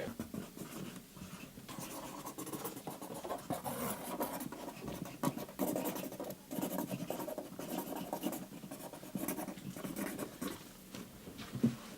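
Writing on the homemade oven: the scratching of a coloring utensil drawn across its surface in many short, irregular strokes.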